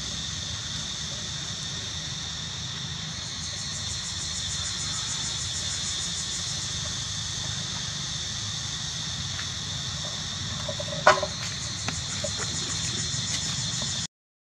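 Steady high insect drone in two bands, with a low rumble underneath. A single short, sharp sound stands out about eleven seconds in. Near the end the sound cuts out for a moment.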